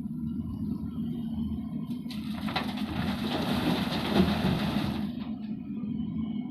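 Diesel engine of an earthmoving machine running steadily. From about two seconds in, a rush of noise lasts about three seconds, then drops away.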